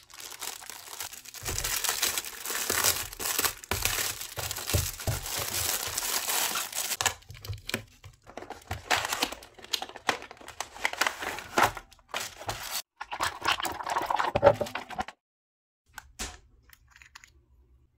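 Clear plastic shrink-wrap crinkling and tearing as it is pulled off a cardboard box, dense at first and then in patchier bursts of rustling and handling. It stops about three-quarters of the way through, leaving only a few faint clicks as a small lip gloss pot is handled.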